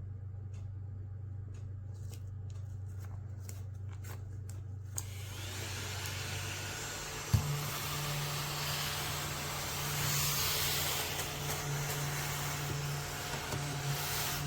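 Mini desktop vacuum cleaner running with a steady motor hum and light clicks of handling in the first few seconds. From about five seconds in a louder hiss joins, and after a sharp click a little past halfway the hum steps up in pitch.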